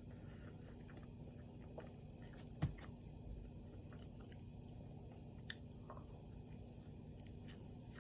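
A person chewing steak and cheese close to the microphone, with small wet mouth clicks throughout and one sharp, louder click between two and three seconds in.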